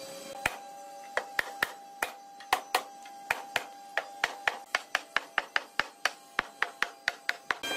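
Hammer striking the hardwood cabinet frame, knocking its dovetailed joints home. The blows are scattered at first, then turn into a quick, even run of about four taps a second.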